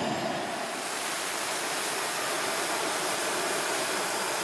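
Jet engine running at high power: a steady, even rush of noise with no distinct tones.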